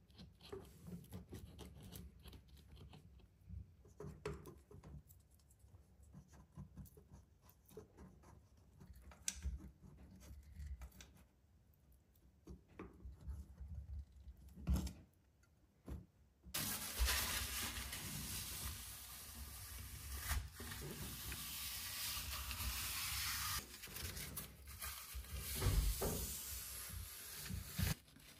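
Faint clicks and rubbing from a caulking gun and its nozzle as acrylic filler is squeezed into a shower-tray seam. About halfway through, a steady hiss starts abruptly and carries on.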